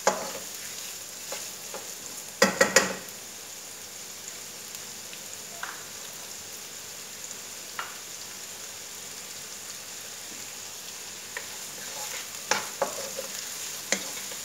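Chopped onion sizzling steadily in hot oil in a nonstick wok. A wooden spatula knocks and scrapes against the pan in a quick cluster about two and a half seconds in, and again near the end.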